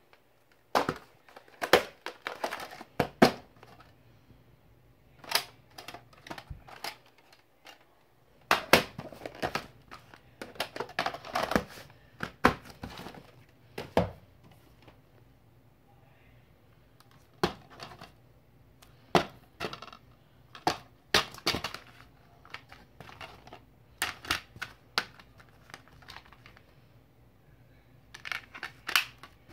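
Plastic VHS and DVD cases being handled: sharp clicks, taps and rustling as the cases are picked up, opened and set down, in irregular clusters with short pauses between them.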